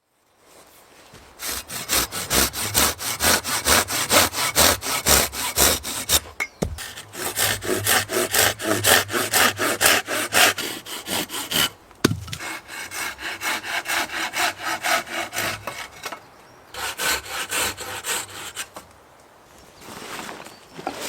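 Hand saw cutting wood with rapid, even back-and-forth strokes, in several runs broken by short pauses and dying away near the end.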